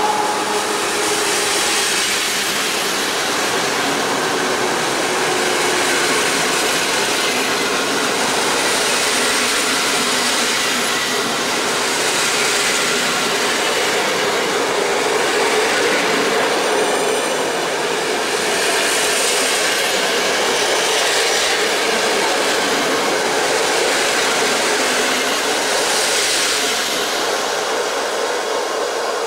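A train of passenger coaches rolling past along the platform track: a steady rail rumble with swells of hiss every few seconds as the wheels pass, and faint wheel squeals.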